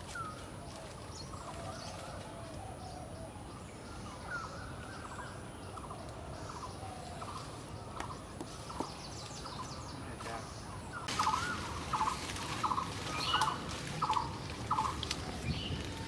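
Parrots squawking: a run of harsh, raspy calls about twice a second in the last five seconds, louder than the faint bird chirps and short whistles heard before them.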